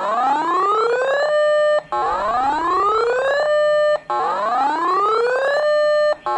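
Electronic whoop alert siren: a buzzy tone rising in pitch for just over a second, holding steady briefly, then cutting off, repeated about every two seconds, three times with a fourth starting at the end.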